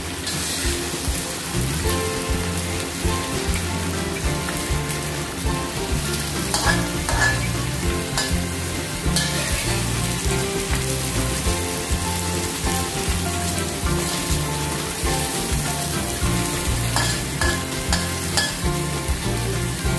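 Small whole fish frying in oil in a wok with ginger and spring onion, sizzling steadily while a metal spatula stirs and turns them, with a few sharper scrapes and clatters of the spatula against the wok.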